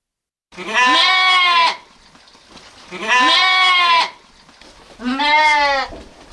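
Sheep bleating three times, each a long baa of about a second, spaced about two seconds apart.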